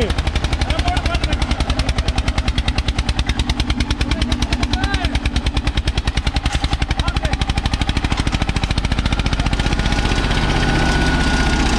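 Eicher 241 tractor's single-cylinder diesel engine labouring under the pull of a disc harrow, its exhaust beating at about ten pulses a second. The beats blur into a steadier drone about nine seconds in. The tractor is said to have a slipping clutch and cannot put its power down.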